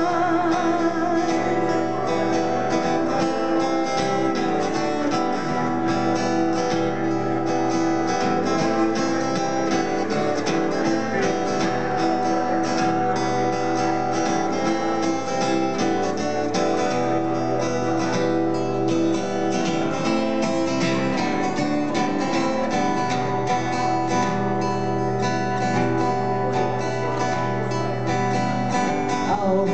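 Acoustic guitar strummed in a steady rhythm, ringing chords.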